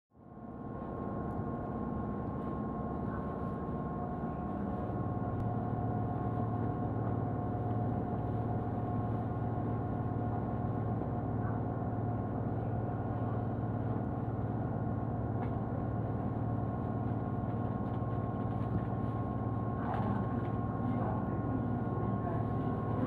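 Inside a Tobu Urban Park Line commuter train standing at the platform before departure: the car's onboard equipment gives a steady hum and whine, with a lower hum joining about four seconds in.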